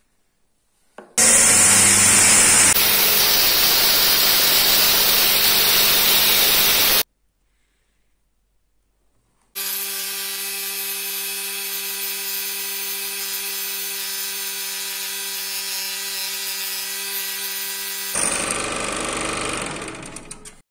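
A power tool cutting wood with a loud, high hiss stops abruptly about seven seconds in. After a short gap an electric scroll saw runs with a steady hum, growing louder and noisier near the end as the blade cuts into a small piece of thin wood.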